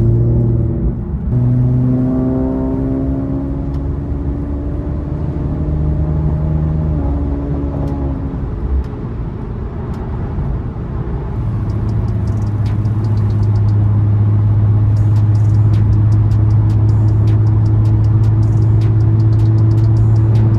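Infiniti Q50's engine running as the car drives, the note stepping and gliding in pitch during the first half, then settling into a steady drone from about halfway through.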